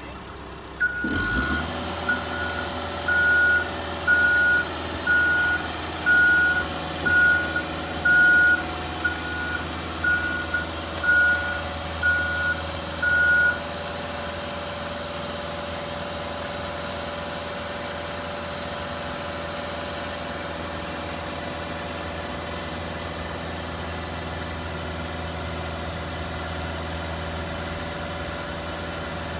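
Caterpillar mini excavator's diesel engine running, picking up about a second in, with its motion alarm beeping about a dozen times, roughly once a second, as the machine moves. The beeping stops about halfway through and the engine runs on steadily.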